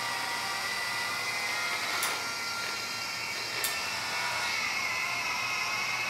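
Drive motors of a wooden Theo Jansen-linkage walking machine running steadily with a whine as both legs cycle together under remote control. Two short sharp clicks come through, about two seconds in and again a second and a half later.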